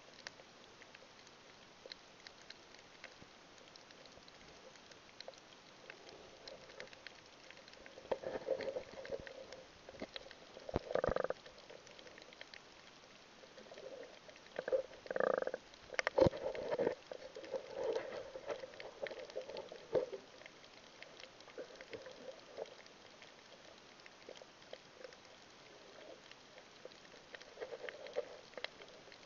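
Underwater sound picked up by a snorkeler's camera: a faint crackle of tiny clicks over a low hiss, with muffled sloshing and bubbling bursts between about 8 and 20 seconds in, the loudest two around 11 and 15 seconds, and a few more near the end.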